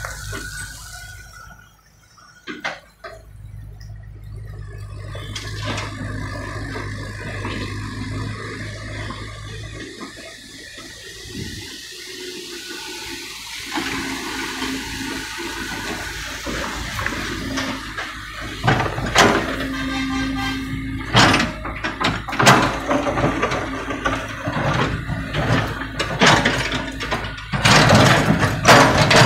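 Small tracked excavator's engine running while its bucket scrapes into and scoops broken old asphalt slabs. From about two-thirds of the way through there are many sharp knocks and clatters of asphalt chunks, loudest near the end.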